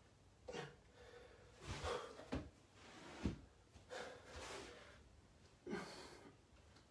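A man breathing out hard in short bursts, about one breath per push-up rep, while doing deficit push-ups with his hands raised on stacks of books. A couple of dull knocks come in the middle, from his body or hands on the floor.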